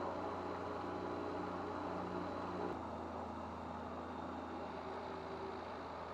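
Rotax 912UL four-cylinder flat-four aircraft engine running steadily, with a small sudden shift in its sound a little before halfway.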